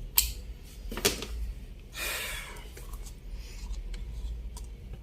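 Handling noises while working on a ceiling fan: a sharp click, then a louder knock about a second in, then a brief scraping rustle, with a few faint ticks afterwards over a low steady hum.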